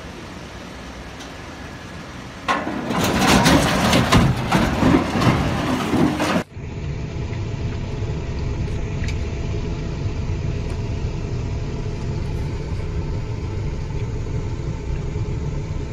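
A vehicle engine running with a low steady rumble. About two and a half seconds in, a loud rushing noise breaks in for about four seconds and cuts off suddenly, and the engine drone goes on steadily after it.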